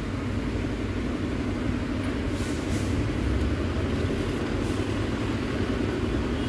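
Steady rumble of road traffic, even and unbroken, with no distinct knocks or tools standing out.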